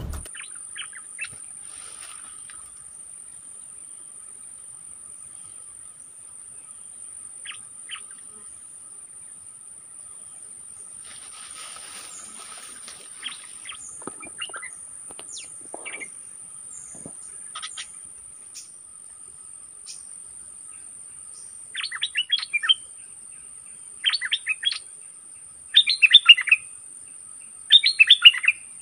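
Caged decoy bulbul singing: faint scattered calls at first, then from about two-thirds of the way in, loud short phrases of rapid notes repeated about every two seconds. A steady high insect drone runs underneath.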